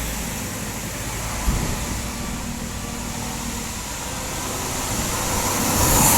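A motor vehicle's engine running steadily with road noise, with a single short knock about one and a half seconds in and a hiss building toward the end.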